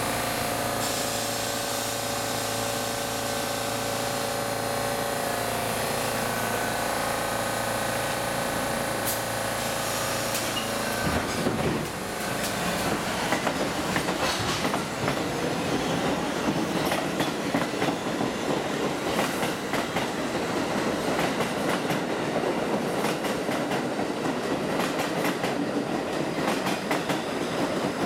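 A Budd R32 subway train with Westinghouse DC traction motors passes along an elevated platform. For about the first eleven seconds the motors and gears whine in several steady tones that shift a few seconds in. The whine then gives way to a loud, continuous clatter of steel wheels over rail joints.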